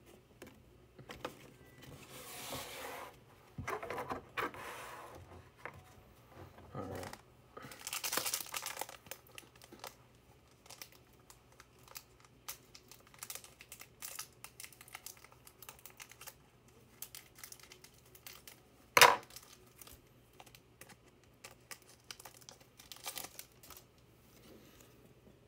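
A foil trading-card pack wrapper being torn open and crinkled, in several crackly spells over the first ten seconds. Then light ticks and taps of cards being handled, and one sharp click about 19 seconds in, the loudest sound.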